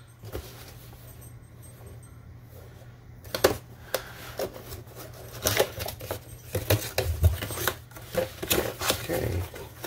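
Hands handling a white cardboard box and working its end flap open: fairly quiet for about the first three seconds, then a run of sharp cardboard clicks, scrapes and taps.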